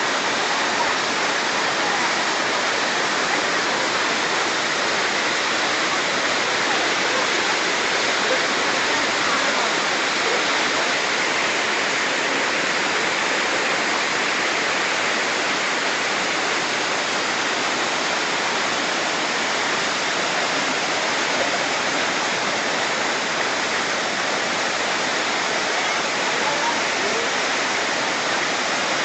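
Waterfall pouring down rock into a plunge pool: a steady, even rush of falling water.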